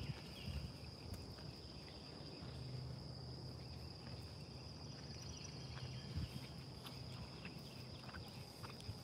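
Faint, steady high-pitched insect chorus, crickets or similar, with a low hum underneath.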